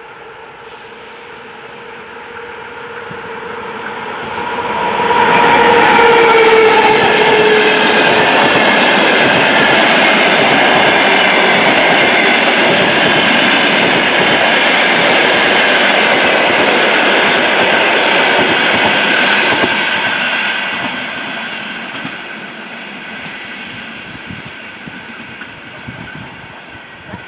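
ВЛ40у electric locomotive and its passenger coaches passing close by. The locomotive's steady hum drops in pitch as it goes by about six seconds in. The coaches' wheels then rumble and clack on the rails for about fifteen seconds before the train fades away.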